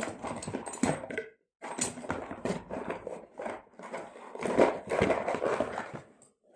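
Handling noise from a metal door closer and its packaging: irregular knocks, clicks and clatter in two bursts with a short pause about a second in.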